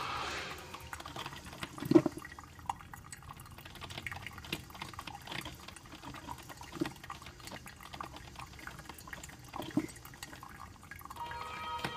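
Drip coffee maker brewing: water gurgling and sputtering through the machine, with irregular pops, the loudest about two seconds in and others near seven and ten seconds.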